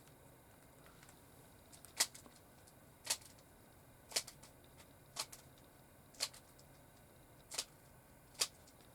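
Rubik's Cube being turned by hand, seven sharp clicks about a second apart as its layers snap round, starting about two seconds in.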